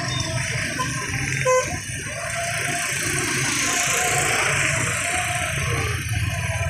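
Slow road traffic, with car and motorbike engines running as they pass close by. There is a short, loud beep about a second and a half in.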